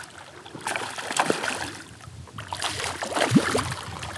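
A hooked smallmouth bass thrashing and splashing at the water's surface beside a kayak, in two bouts: one about a second in and another after about two and a half seconds.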